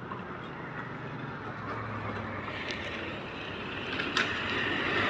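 Toyota HiAce minibus driving over a railway level crossing toward the listener, its engine and tyre noise growing steadily louder as it comes near. A couple of faint sharp ticks sound in the second half.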